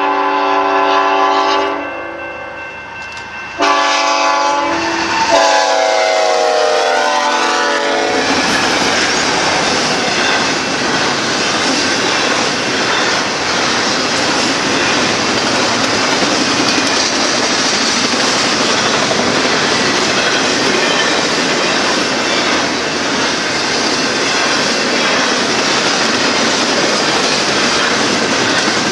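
Diesel locomotive's multi-tone air horn sounding two blasts, the second sliding down in pitch as it passes. It is followed by the steady noise of a BNSF double-stack intermodal train's wheels rolling on the rails.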